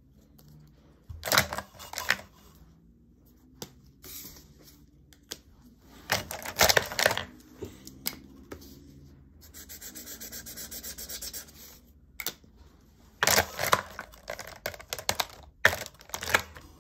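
Felt-tip markers being handled and used: several bursts of clicks and clatter as caps come off, snap back on and markers are set down, and a short stretch of quick scratchy strokes on paper.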